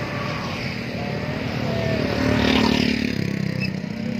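Steady road traffic of motorcycles and cars running by, with one vehicle passing louder about two and a half seconds in.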